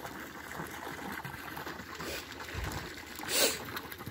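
A single short splash in a fish pond's water about three and a half seconds in, over a faint steady background hiss.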